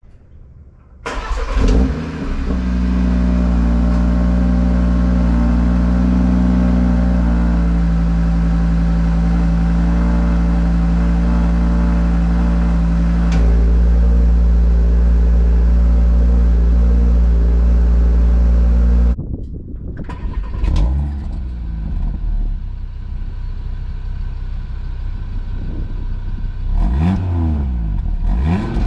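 Audi RS3's 2.5-litre turbocharged five-cylinder starting about a second in, flaring briefly and then settling into a loud, steady fast idle, as on a cold start. About two-thirds of the way through it cuts off abruptly to a quieter engine sound, with a few short revs near the end.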